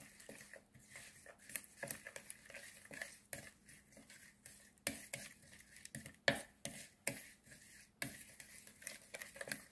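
A utensil stirring a wet chili seasoning paste in a glass mixing bowl: soft irregular scraping with light clicks against the glass, a few sharper knocks in the second half.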